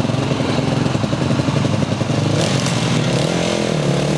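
450cc single-cylinder quad bike engine running and being revved, its pitch rising and falling in the second half.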